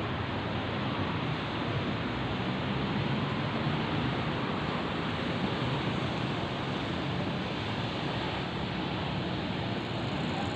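Steady roar of road traffic, with a low hum underneath.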